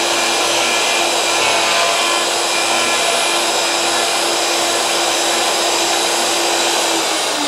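Plunge router running steadily as it cuts a dog hole through the benchtop with the router locked at full depth. It is switched off near the end, and its pitch starts to fall as the motor winds down.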